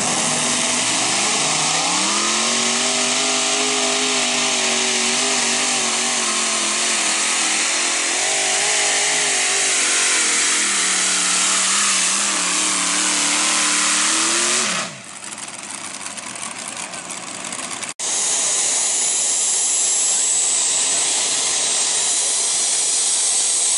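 Pulling-tractor engine at full throttle, its pitch rising and falling for about fifteen seconds. After a brief quieter stretch with an abrupt cut, a steady high whine and rush follows, typical of a turbine-powered mini pulling tractor.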